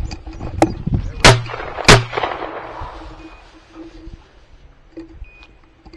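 Two loud shotgun shots about half a second apart, followed by a fading echo.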